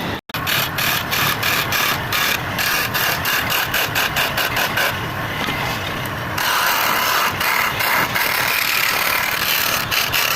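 Woodturning lathe running while a tool rasps against the spinning workpiece in quick, repeated scraping strokes. The sound cuts out for a moment just after the start.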